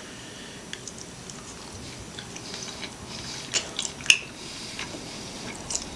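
A person chewing a bite of steamed dumpling: faint, scattered mouth clicks, with a few sharper clicks about three and a half to four seconds in.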